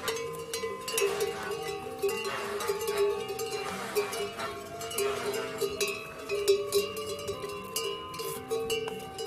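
Bells on pack yaks clanking in uneven strikes as the yaks walk past, their tones ringing on between strikes.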